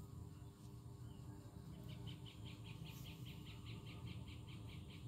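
A rapid, even run of faint high chirps, about six a second, beginning about two seconds in, over a low steady hum.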